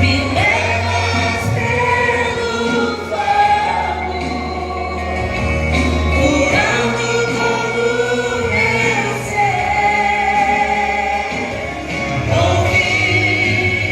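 Gospel vocal group singing in several voices, with long held notes, over instrumental backing with sustained bass notes.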